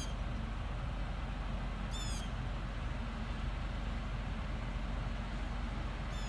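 A bird calling three times, about two seconds apart, each call short and falling in pitch, over a steady low background rumble.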